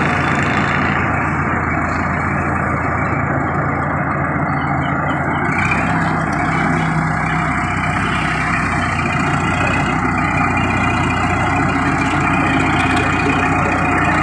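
Large bulldozer's diesel engine running steadily as the machine climbs up onto a trailer, its note dropping deeper about five and a half seconds in.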